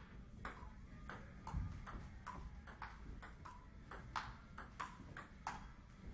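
Table tennis rally: the celluloid-type ball clicking off paddles and the table about twice a second, each hit with a short ring, until the rally stops near the end. A low thump sounds about one and a half seconds in.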